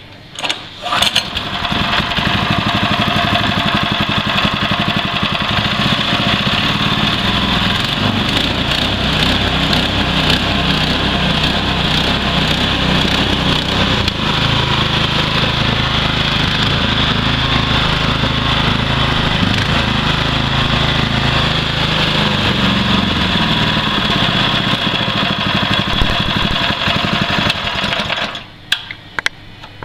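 Lifan 168F-2 6.5 hp single-cylinder four-stroke engine starting about a second in, running steadily, then shut off near the end.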